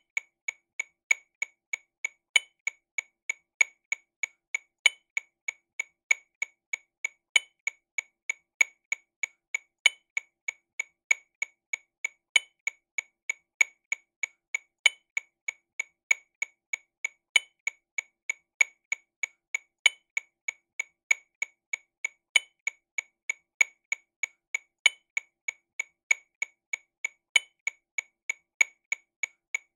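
TAMA Rhythm Watch RW200 metronome click playing sixteenth notes at 48 BPM, a steady run of short clicks about three a second, with a louder accented click on each beat.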